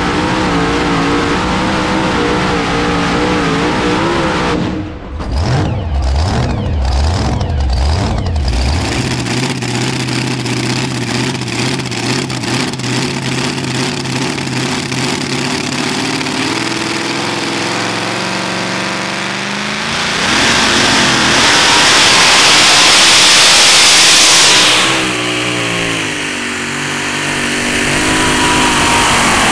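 Supercharged engines of super modified two-wheel-drive pulling trucks: first running and pulsing at low revs, then held at a steady note. About two-thirds of the way in the engine goes to full throttle for several seconds as the truck pulls the sled, drops briefly, and then climbs in revs again near the end.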